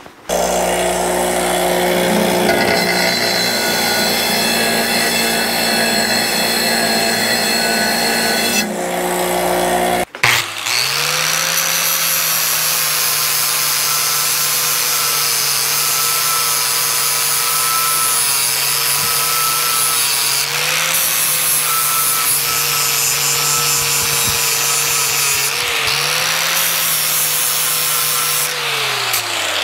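A Skilsaw abrasive chop saw running through steel pipe for about ten seconds. After a short break, a hand-held angle grinder grinds steel held in a bench vise; its steady motor pitch shifts slightly twice as the pressure changes, then falls as it spins down near the end.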